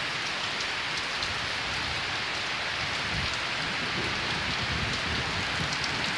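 Heavy rain falling steadily on the ground, an even, dense hiss.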